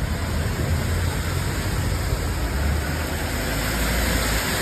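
Cars driving slowly through deep floodwater: engine noise and water churning and splashing around the wheels, a steady wash of sound over a low rumble.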